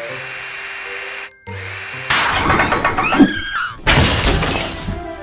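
Cartoon cordless drill whirring steadily on a truck wheel's nuts over cheerful music, stopping after about a second. About two seconds in, a louder, jumbled run of cartoon mishap sound effects follows, with gliding tones and a heavy low rumble.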